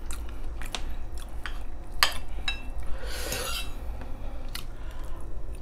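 Metal fork clinking and scraping against a ceramic plate of braised pork ribs: a handful of separate clinks, with a short soft rustle about three seconds in.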